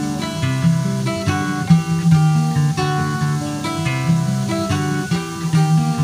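Background music: plucked acoustic guitar playing a melody over picked chords.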